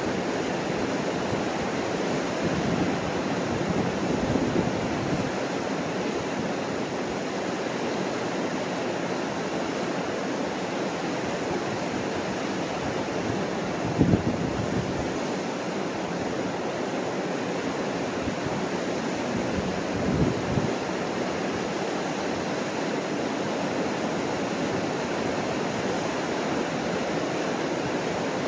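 Steady rush of the Mississippi River pouring over the rocky Chain of Rocks rapids. Two brief gusts of wind buffet the microphone, about halfway through and again a few seconds later.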